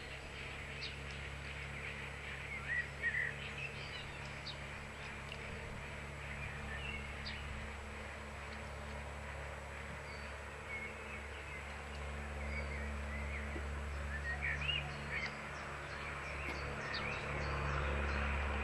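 Small birds chirping on and off over a steady low hum, which grows louder near the end.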